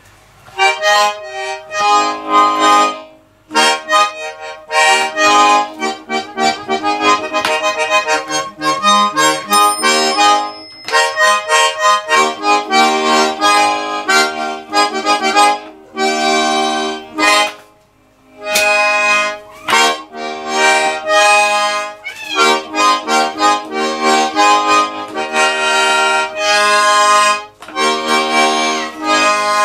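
Small button accordion played in short, halting phrases of chords and runs, not as a proper tune, with breaks about three seconds in and again about seventeen seconds in.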